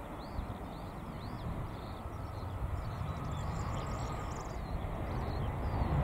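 Jet engines of an easyJet Airbus A320-family airliner landing: a steady rumble that grows louder as the aircraft touches down and rolls out. A small bird chirps faintly in the background.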